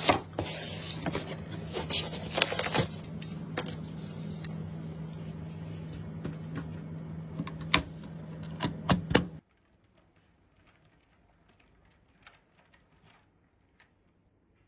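Scattered clicks and knocks of small hardware being handled over a steady low hum. Both cut off suddenly about nine seconds in, leaving only a few faint ticks.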